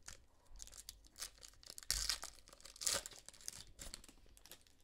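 Foil trading-card pack wrapper being torn open and crinkled, with cards handled, as a run of short scratchy rips and rustles; the loudest come about two and three seconds in.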